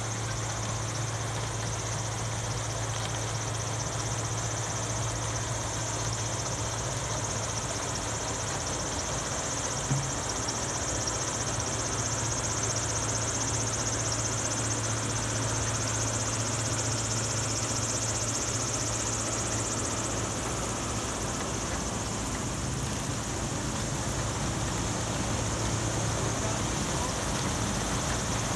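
Steady low engine hum with a constant high hiss above it, and a single short click about ten seconds in.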